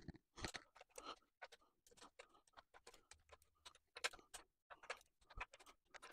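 Faint, irregular ratchet clicking from a socket wrench on the cylinder head bolts, several clicks a second, as the new head bolts are wound down and torqued to 25 Nm.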